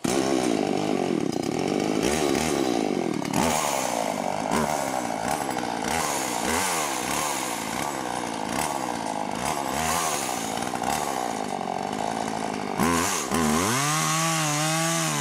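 Chainsaw engine running, its pitch repeatedly dipping and recovering. About thirteen seconds in it revs sharply up and holds a high, steady whine.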